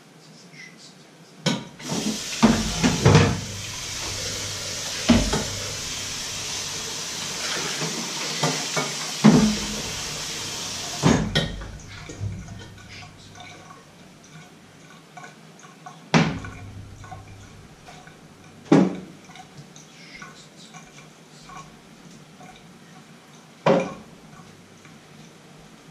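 Tap water running into a stainless steel sink while crockery and cutlery clatter and knock together as dishes are washed by hand. The water stops about eleven seconds in, and a few single knocks of dishes follow.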